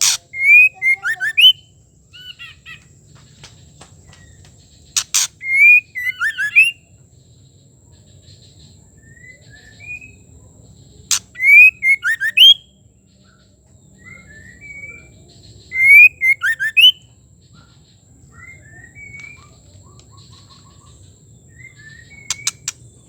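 Female white-rumped shama calling in short bursts of quick whistled notes and chirps about every five seconds, with softer chirps between the bursts and a few sharp clicks.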